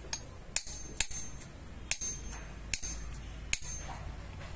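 Hammer tapping a steel chisel against a stone kitchen grinder, pecking its grinding surface rough again. Six sharp strikes at an uneven pace of about one every half to one second, each giving a short, high metallic ring.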